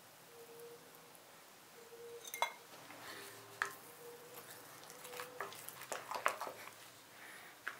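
A wooden spoon beating egg into thick choux pastry dough in a glass bowl: sharp knocks of the spoon against the glass and soft squelching of the dough, busiest in the second half.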